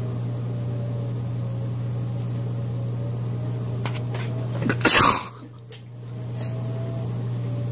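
A steady low hum, broken about five seconds in by one short, loud burst. After the burst the hum drops out for about a second, then comes back.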